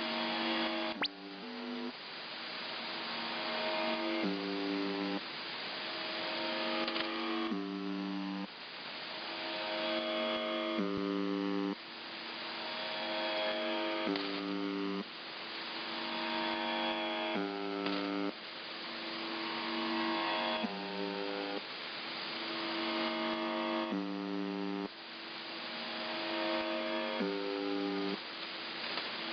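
UVB-76 'The Buzzer' shortwave time signal on 4625 kHz received over radio: a low buzzing tone with a row of overtones, sounding in pulses of about a second every couple of seconds over steady static hiss. The strength swells and then drops back every few seconds, as a shortwave signal fades.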